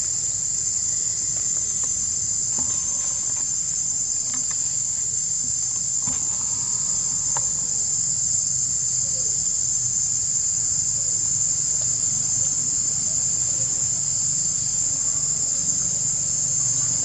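Insect chorus: a steady, high-pitched drone that does not let up.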